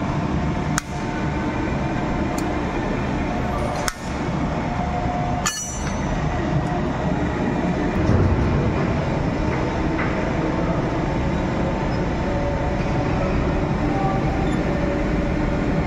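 Steady loud machinery noise of an industrial workshop, with a few light metallic clinks.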